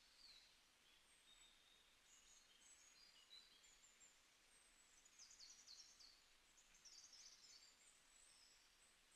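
Near silence with faint, high bird chirps scattered throughout, thickest about five to seven seconds in.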